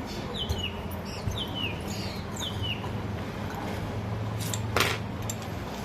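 A bird chirping in the background: three short falling chirps about half a second apart, then a short sharp noise near the end, over a low steady hum.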